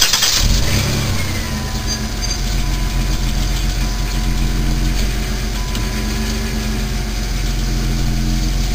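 1995 Plymouth Voyager minivan engine idling steadily, just after being started.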